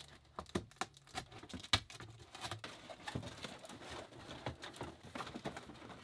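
Cardboard packaging being handled: rustling, scraping and many small irregular taps and clicks as hands move and pull out the inserts inside a box.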